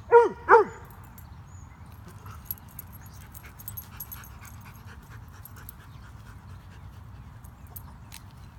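A dog giving two quick play barks in a row, each falling in pitch, right at the start; then only faint rustling and steps in dry leaves.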